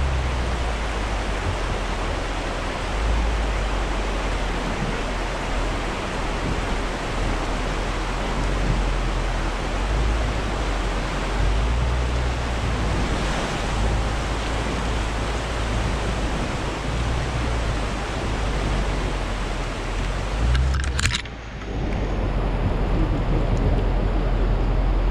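Steady rushing of a fast-flowing river, with irregular low rumbles underneath; the noise briefly drops away near the end.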